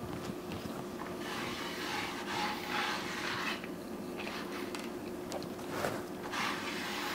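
Soft rubbing and scraping noises in swells over a steady low hum, the longest swell starting about a second in and another near the end.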